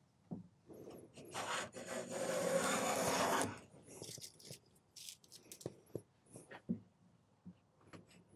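Quangsheng Luban No 4 smoothing plane taking a test shaving off a board: one long rasping stroke starting about a second in and lasting over two seconds, followed by small knocks and taps as the plane is lifted and handled.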